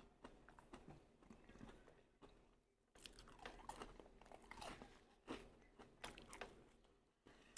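A person chewing food close to the microphone, with soft, irregular crunching and mouth clicks.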